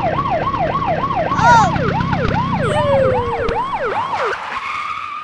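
Police siren sound effect, a fast repeating falling wail about two and a half times a second over a low rumble, fading out near the end.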